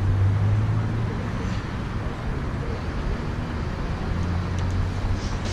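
Road traffic: a steady rush of passing cars, with a low engine drone near the start and again from about four seconds in.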